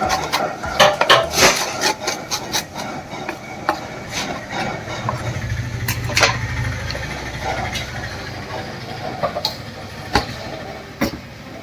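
Kitchen work sounds: irregular knocks and clicks of utensils and cookware, thickest in the first couple of seconds, with a low hum for about two seconds in the middle.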